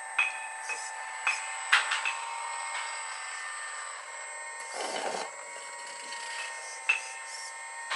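Hydraulic pump of a 1:14-scale RC Volvo EC380 model excavator running with a steady whine while the arm and bucket work, with a few sharp clicks in the first two seconds and another near the end, and a brief rougher rush about five seconds in.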